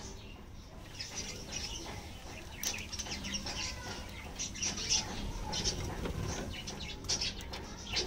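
Budgerigars chirping: a stream of short, high chirps one after another, some louder than others.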